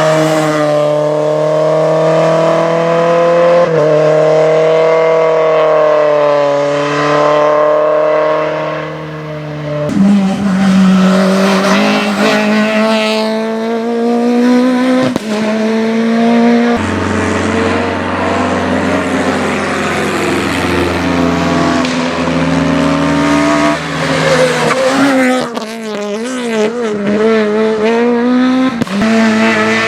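Rally car engines running hard at full throttle, their pitch rising and falling through the revs and gear changes, with tyres squealing at times. The engine note changes abruptly about ten and seventeen seconds in.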